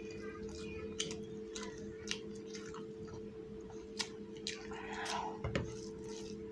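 Eating sounds: fingers squishing and mixing rice on a plate and chewing, with a lime wedge squeezed over the rice a little past halfway. A few sharp clicks break in over a steady low hum.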